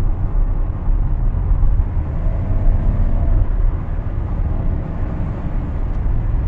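Cabin noise of a Maruti Suzuki car cruising at about 90 km/h: a steady low rumble of engine and tyres on the road.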